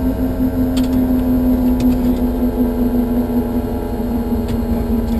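Helicopter engine and rotor running on the ground, heard from inside the cockpit: a steady hum that slowly sinks in pitch over a low pulsing rumble, the rotor winding down. A few faint ticks come through.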